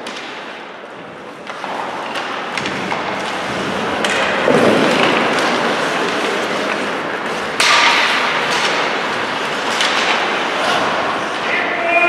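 Ice hockey play on the rink: skates scraping the ice, with sticks and puck clacking in frequent sharp knocks, and one loud knock about seven and a half seconds in.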